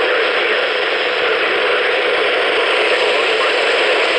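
Steady, loud radio static hiss with no voice through it: the warning broadcast's signal has dropped out into noise.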